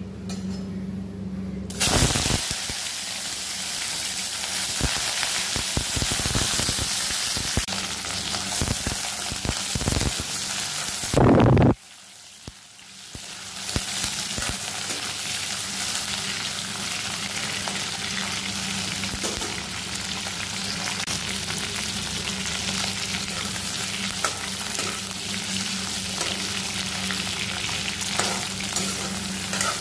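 Pork pieces frying in hot oil in a metal kadai, a dense steady sizzle that starts suddenly about two seconds in as the meat goes in. A spatula scrapes and clicks against the pan as the pieces are stirred. The sizzle surges loudest just before the middle, dips briefly, then builds again, over a low steady hum.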